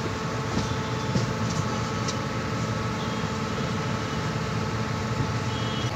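Passenger train running on the rails, heard from on board: a steady low rumble with a steady hum over it and a few faint clicks in the first couple of seconds.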